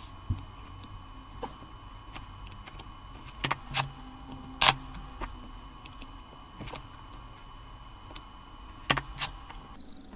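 Scattered light clicks and taps of a soldering iron and tools against the cells and bus bar of an 18650 battery pack during soldering of fuse wire, a few sharper taps near the middle and again near the end. Under them runs a faint steady whine that stops near the end.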